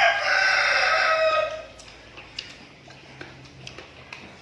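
A rooster crowing: one long crow that is already under way and ends about a second and a half in. It is followed by a few faint clicks.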